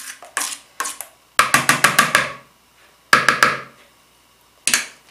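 Metal spoon tapped against the rim of a plastic mixing bowl to knock off batter: two single taps, then a quick run of about seven, a shorter run of four, and one last tap.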